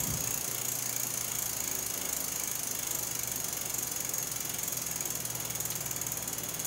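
Bicycle wheel spinning steadily at riding speed, giving a continuous rapid ratcheting buzz from the hub or drivetrain.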